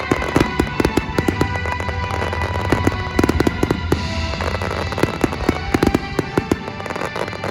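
Aerial fireworks going off in quick succession, many sharp bangs and crackles overlapping one another, with music playing underneath.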